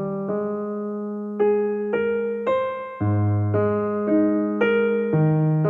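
Soft piano music: a slow melody of sustained notes over held bass notes.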